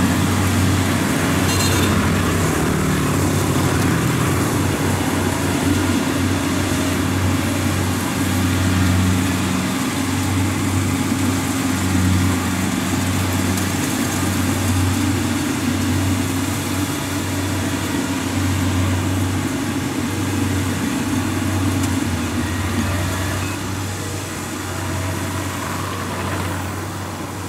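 Kubota DC-70 combine harvester's diesel engine running steadily, its low hum swelling and easing every second or two, a little quieter near the end.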